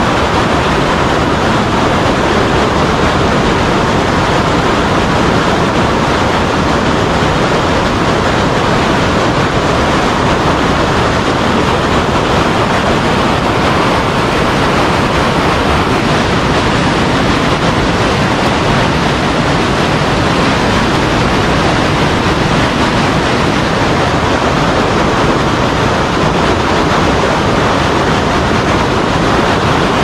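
Creek water rushing over boulders in rapids: a loud, steady, unbroken roar of whitewater.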